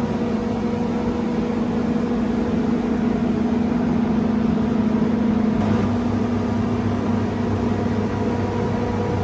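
Steady motor-driven machine hum, a low drone with a few fixed humming tones over a hiss. The lowest part of the drone shifts about halfway through.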